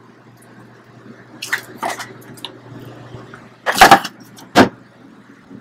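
Knocks and thumps from packing frozen meat packages into a plastic cooler and handling its hollow lid: a few light knocks, then two loud sharp thumps about four and four and a half seconds in, over a steady low hum.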